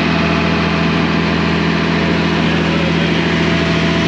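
Fishing boat's engine running steadily under way, a low even drone over a constant rushing noise.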